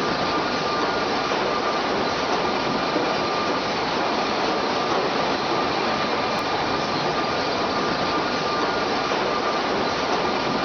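Industrial four-sided planer in a planing mill running steadily: an even, unbroken machine noise with a faint high steady whine.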